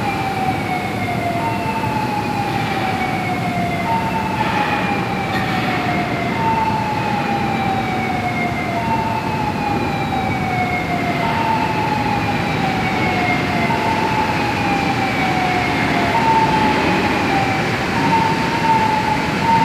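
Warning siren of an overhead ladle crane in a steel melt shop, sounding a falling wail that repeats about every two seconds over steady plant noise. Near the end it switches to a quicker series of even beeps at one pitch.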